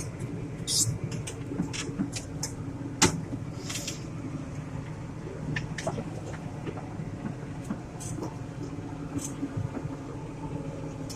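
John Deere 8770 tractor's engine running steadily, heard inside the cab, with scattered sharp clicks and rattles, the loudest about three seconds in.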